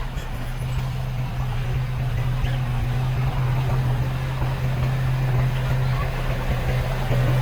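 Diesel engine of heavy earthmoving machinery running steadily, a constant low drone.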